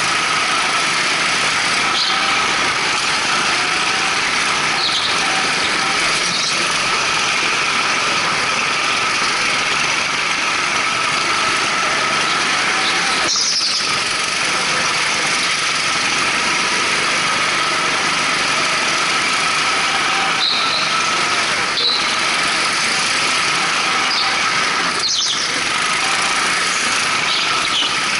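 Rental go-karts powered by twin Honda GX200 single-cylinder four-stroke engines running hard around the track, a steady loud engine drone. Short high tyre squeals come through several times in the corners.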